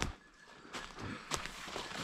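Footsteps through dry fallen leaves and twigs on a forest floor, quiet rustling with a couple of sharp clicks.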